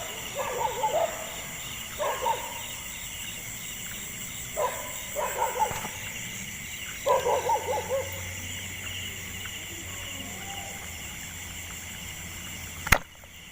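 Dogs howling in the distance in four short wavering bouts, over a steady high insect drone. Near the end comes a single sharp snap, the speargun being fired.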